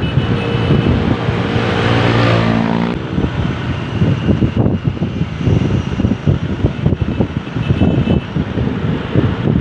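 A heavy vehicle's engine drones close by with a steady pitch for about three seconds. After that comes rumbling road noise, with wind buffeting the microphone.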